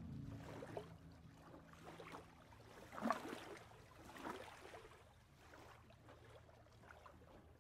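Small waves lapping softly at the lake's edge, in gentle splashes about a second apart, the clearest about three seconds in.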